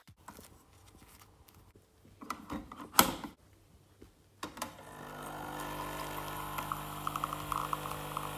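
Philips Senseo coffee pod machine brewing: a few clicks, one sharp and loud about three seconds in, then about halfway through the pump starts up with a steady hum and a fine rattle as coffee pours into the glass.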